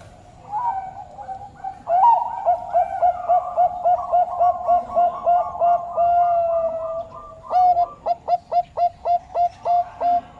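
Bangkok turtledove cooing. A quick run of short coos, about four a second, is broken by one longer held note about six seconds in, then a second fast run of clipped coos follows.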